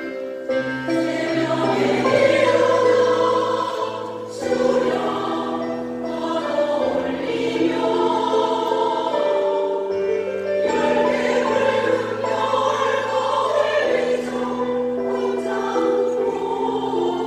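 A seniors' choir singing in parts, with short breaks between phrases.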